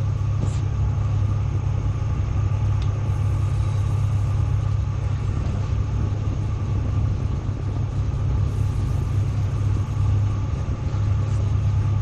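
Tugboat's diesel engines running with a steady low drone, heard inside the wheelhouse.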